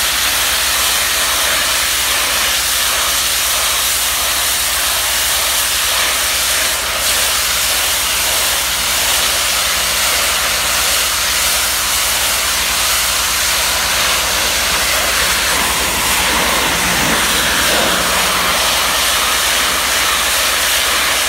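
Ball-valve pressure-washer wand spraying a continuous jet of water onto concrete steps: a loud, steady hiss of the spray, with a low steady hum underneath.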